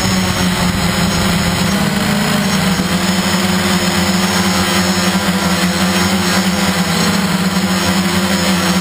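Electric motors and propellers of a radio-controlled aircraft in flight, a steady drone whose pitch shifts a little about two to three seconds in, with rushing air noise over it.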